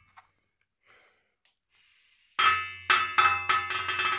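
Fidget spinner being flicked and spun, making a clickety-clackety rattle of sharp clicks with a metallic ring, about three a second. It starts a little past halfway, after a near-silent start.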